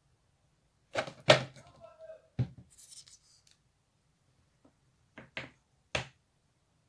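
Wooden clothespins knocking against a hard tabletop as a glued section of pegs is set down and pushed into place. A few sharp clacks, the loudest about a second in, with a brief scrape and lighter taps near the end.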